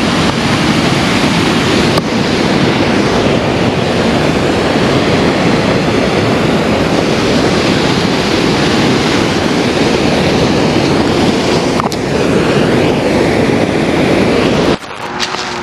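Loud, steady rush of fast whitewater churning along the river bank, with some wind on the microphone; it cuts off suddenly near the end.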